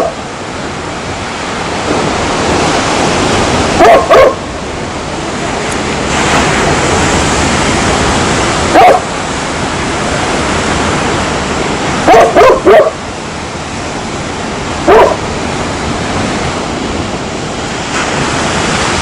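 Dog barking: short, loud barks every few seconds, some single and some in quick runs of two or three, over a steady rushing hiss.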